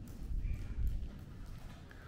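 Footsteps of someone walking across a concrete floor, heard as an irregular low rumble of dull thuds.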